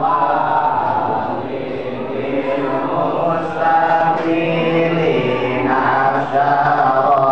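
A group of men chanting together in unison, holding long notes that glide up and down.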